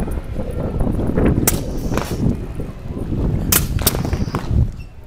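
Compressed-air cannons on radio-controlled model warships firing small balls: four sharp pops in two pairs, the pairs about two seconds apart, over a steady low rumble.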